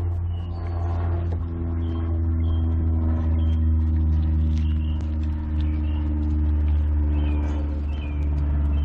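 A motor running steadily with a low hum. Short high chirps sound over it every second or so.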